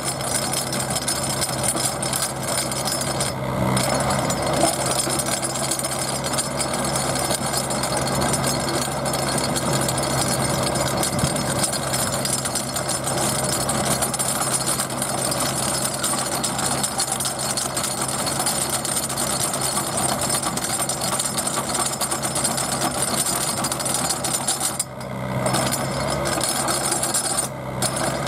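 Micro Drill auger rig's engine running steadily under load while its solid-stem auger turns in the hole, with grinding and rattling from the drill string; the sound eases off briefly near the end.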